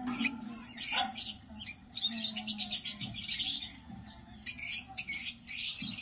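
Lovebirds giving harsh, raspy chattering squawks in repeated bursts, with a short lull about four seconds in.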